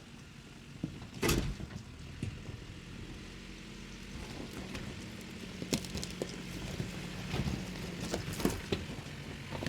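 Toyota Tacoma pickup driving slowly on a rough dirt road: a low, steady engine hum with scattered knocks and thumps, the loudest about a second in and a cluster more near the end.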